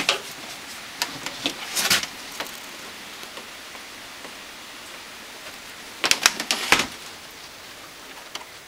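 Scattered clicks and knocks of handling as a mains plug is pushed into a power strip, with a louder cluster of clatter about six seconds in, over a steady low hiss.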